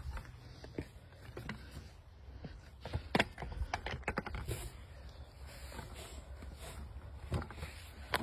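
Knocks and clicks of footsteps and trekking poles on a wooden ladder stile, irregular and thickest about three to four seconds in, over a steady low rumble.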